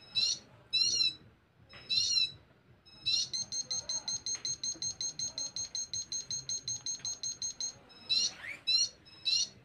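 Homemade transistor siren circuit giving high-pitched electronic chirps, each a quick rise and fall in pitch, in short separate bursts. About three seconds in it switches to a rapid even beeping, roughly eight beeps a second, for several seconds, and the chirps return near the end.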